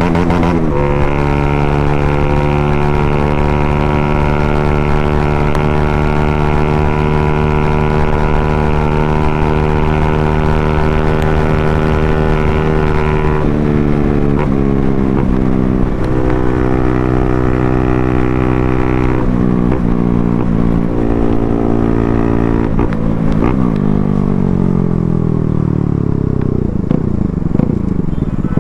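Bajaj Pulsar NS200's single-cylinder engine, ridden through an underbelly exhaust opened up for loudness. It runs loud at a steady cruising note for about thirteen seconds, then drops in pitch in steps as the bike slows, with falling and rising sweeps near the end.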